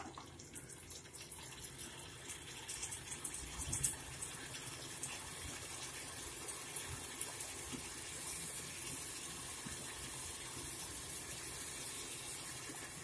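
Tomato and onion masala sizzling steadily in an aluminium pot as the tomato cooks down, with small crackles and pops in the first few seconds.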